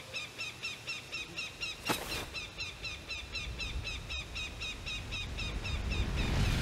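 Outdoor nature ambience of a bird chirping rapidly, about five short chirps a second, over a low windy rumble that swells toward the end. A brief sharp swish cuts through about two seconds in.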